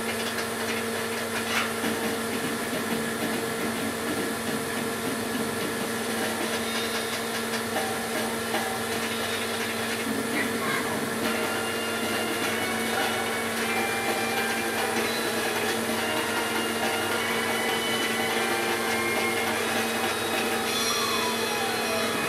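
CDC nine-track tape drive running its self test: the steady whir and hum of its air pump and motors, with faint whines from the tape mechanism and a whine that falls in pitch near the end.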